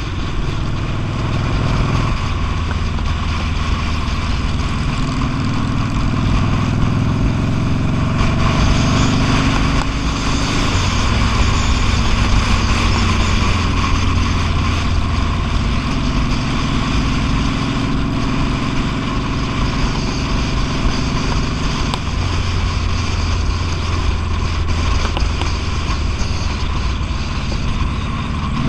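V-twin cruiser motorcycle engine running at road speed, with wind rushing over the microphone. The engine note shifts up and down a little a few times.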